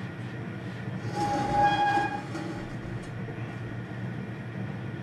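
Propane camp burner running steadily under a pressure canner. A brief high squeal lasting about a second starts about a second in, while the canner is turned on the burner stand.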